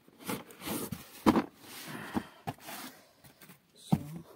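Packaging handling: a cardboard sleeve rustling as it slides off a hard plastic drill carry case, with several short knocks and clicks as the case is handled and set down. The loudest knock comes about a second in.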